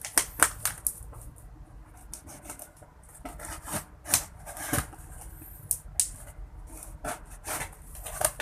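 Packaging of a computer case being handled and opened by hand: irregular rubbing, scraping and knocking, with a few sharper knocks near the start, about four seconds in and near the end.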